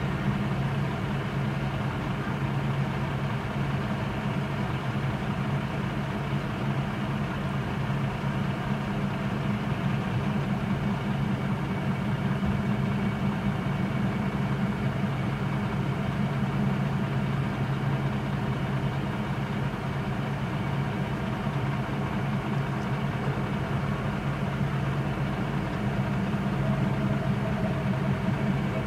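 An engine idling, heard from inside a car's cabin: a steady low hum that does not change.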